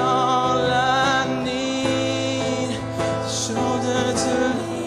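Song music between verses: long sung notes wavering with vibrato over held chords and a steady low bass note.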